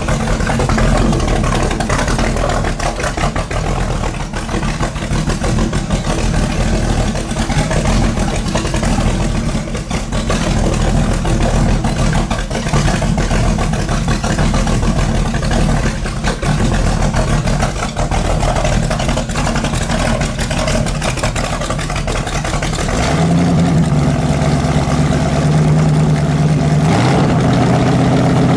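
Boss Hoss motorcycle's V8 engine running loud and uneven, then settling into a steadier held note about 23 seconds in.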